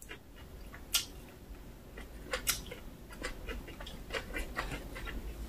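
Close-miked eating sounds: chewing a mouthful of kimchi rice wrap, with wet mouth clicks and smacks. A sharper click comes about a second in and another about two and a half seconds in.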